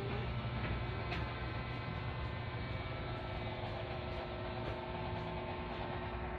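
A steady low hum with a fixed pitch that does not change.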